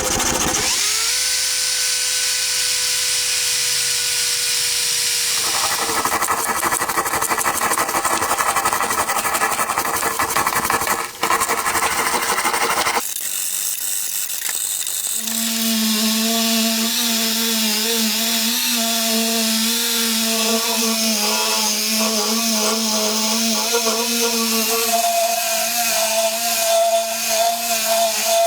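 Small power tool running steadily, heard in several cut-together stretches that change abruptly.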